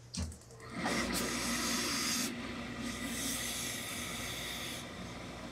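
Hose-fed tailor's steam iron hissing as it presses a suit jacket's body panel flat. The hiss starts about a second in and tails off near the end.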